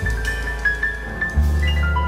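Jazz piano trio playing: double bass plucked in long low notes that change about a second and a half in, under a high line of short piano notes that climbs near the end, with light drum and cymbal strokes.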